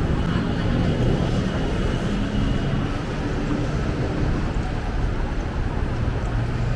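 Steady city traffic noise: a low road rumble with the hum of vehicle engines.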